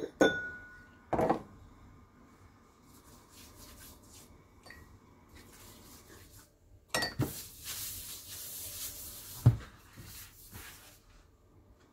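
Kitchen handling sounds: a couple of knocks of things being set down, then about two seconds of brushing and rubbing as a silicone pastry brush and a hand are worked over the worktop, then one sharp knock.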